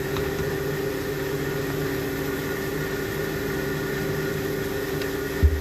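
A motor hums steadily with several even tones, over the faint sizzle of chopped onions frying in mustard oil. A single low thump comes just before the end.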